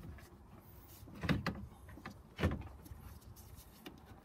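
A radiator being pushed and worked into its mounts in a car's front end: two dull knocks about a second apart, with lighter clicks and scraping of plastic and metal between them.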